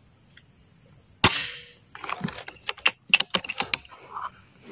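A single shot from a Predator CNC PCP air rifle, a sharp crack about a second in with a short tail. It is followed by a quick run of sharp clicks over the next two seconds.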